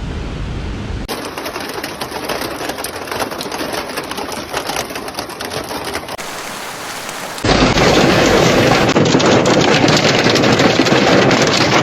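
Hailstones hitting hard surfaces in a dense, fast rattle of impacts, heard in several cut-together clips; the last, from about seven and a half seconds in, is the loudest.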